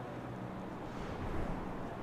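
Outdoor street ambience: a steady background noise with a low rumble that swells briefly about a second in.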